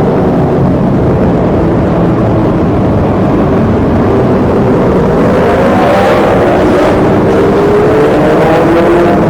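Kawasaki Z900's 948 cc inline-four running loud through a Yoshimura muffler and Delkevic headers with the dB killer removed. The engine note holds fairly even, then rises steadily through the second half as the bike accelerates.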